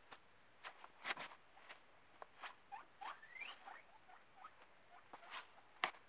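Guinea pigs squeaking faintly: short scattered squeaks and soft clicks, with one longer rising squeak about three seconds in.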